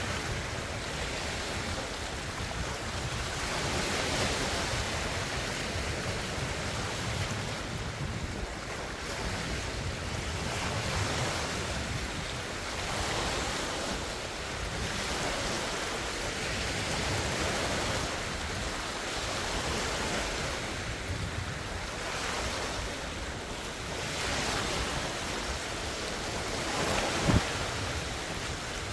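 Large wind-driven lake waves washing and splashing in a steady roar that swells and eases every few seconds, with wind on the microphone. A single sharp thump stands out near the end.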